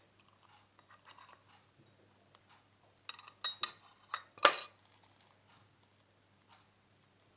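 Spoon clinking and scraping against a bowl while stirring slime, with a cluster of sharp clinks about three to five seconds in.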